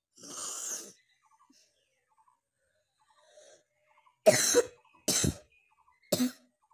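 A person coughing hard three times, about a second apart, after a softer breathy huff at the start.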